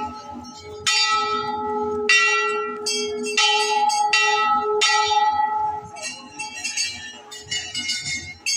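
Hanging temple bells struck over and over, each strike ringing on in steady tones. The strikes come about once a second, then faster and overlapping near the end.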